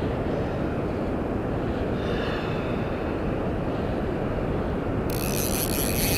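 Ryobi Smurf 1000 spinning reel being cranked to work a squid jig, a steady mechanical whirr of its gears. About five seconds in, a brighter hiss comes in suddenly.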